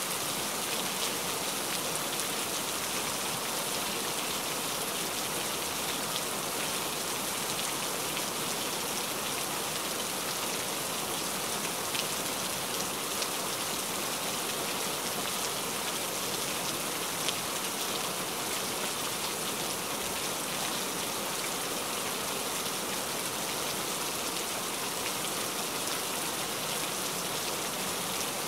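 Steady rain falling: an even hiss of rain with an occasional sharper drop hit.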